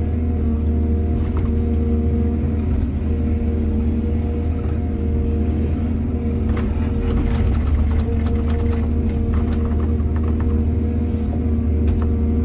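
Heavy diesel engine of an excavator running steadily, with a spell of clattering knocks from about six to ten seconds in.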